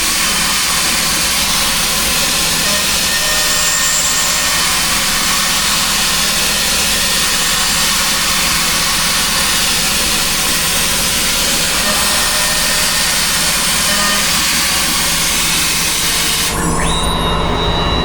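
TechCNC AP4060 benchtop CNC machine milling aluminum, a loud steady cutting noise with a low hum under it. Near the end the cutting noise drops away and a whine rises and holds, as the machine moves between cuts.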